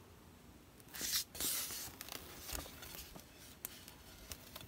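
Handling noise: a scraping, rustling burst about a second in, then scattered light clicks and taps.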